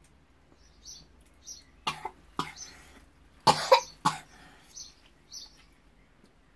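A girl coughing in a run of sharp bursts, the loudest in the middle, with short breathy puffs before and after, reacting to a jelly bean she finds disgusting.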